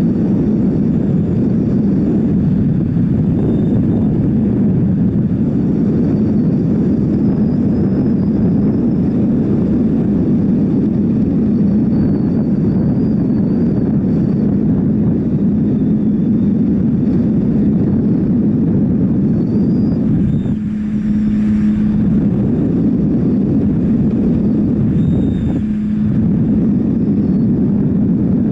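Wind rushing over the microphone at cruising speed, over the steady hum of a Triumph Tiger 800 XC's three-cylinder engine. The wind briefly eases about two-thirds through and again near the end, letting the engine's steady hum come through more clearly.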